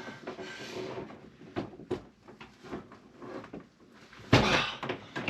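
A stair-climbing hand truck loaded with a heavy water softener, knocking and clunking against the stairs as it is hauled up. A loud thud about four seconds in, as the loaded cart drops onto a step.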